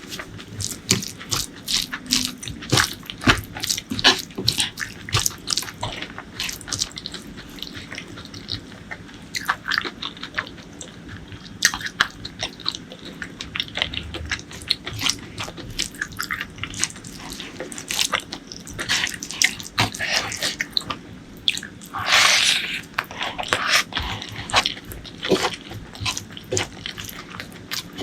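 Close-miked eating sounds: wet chewing and mouth clicks coming thick and fast, with a louder, longer noisy stretch about twenty-two seconds in.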